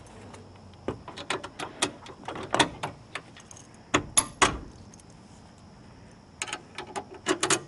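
Metal clicks, clinks and rattles of a trailer's hitch coupler and safety chains being handled while the coupler is latched onto a pickup's ball hitch. A string of short sharp clanks comes in clusters, loudest about four seconds in.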